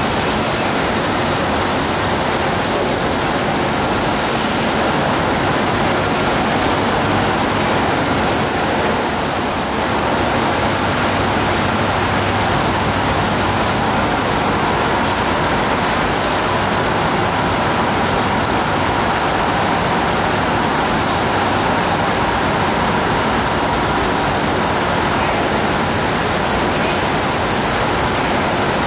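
Steady, loud rushing hiss of a double-head water-jet cutting machine at work on a glass-cutting line.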